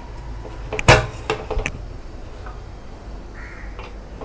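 Metal clacks of a stainless-steel pressure cooker lid being locked shut by its handles: one sharp knock about a second in, then two lighter clicks, and a faint scrape near the end as the whistle weight is fitted onto the vent.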